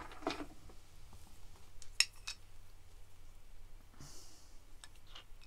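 Handling noise from small decorations being picked up and set down on a metal tier tray: a few light clicks and knocks, the sharpest about two seconds in, and a brief rustle about four seconds in.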